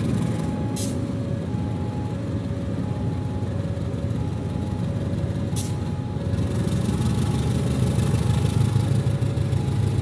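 KAI CC 201 diesel-electric locomotive passing slowly with its diesel engine running, a steady low rumble that grows louder about six seconds in. Two short sharp hisses come about a second in and again near six seconds. A faint two-note tone alternates steadily in the background.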